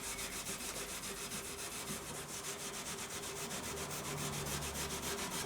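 Oak stool frame being rubbed or scrubbed to take off dirt and sprayed paint. The rubbing goes in a fast, even rhythm of many strokes a second.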